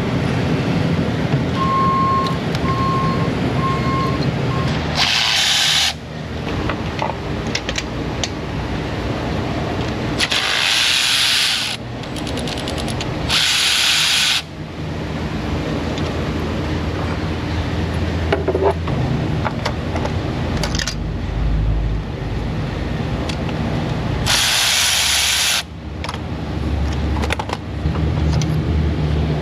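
Hand-tool work on an engine while new spark plugs are fitted, over a steady shop background. Four short bursts of hissing come at about 5, 10, 13 and 24 seconds in, and three short beeps sound near the start.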